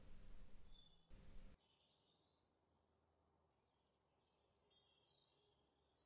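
Near silence: faint outdoor ambience, a low hiss with a hum that cuts off about a second and a half in, then faint high chirps and trills that grow a little toward the end.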